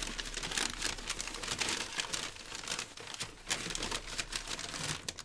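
Plastic crinkling and rustling with many small clicks as a hard plastic baseball display cube is handled, dying away near the end.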